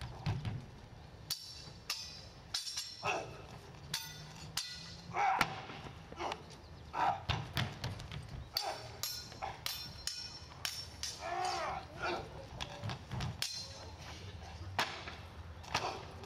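Stage cutlasses clashing again and again in a swordfight, each hit a sharp metallic clang with a brief ring, coming in irregular flurries.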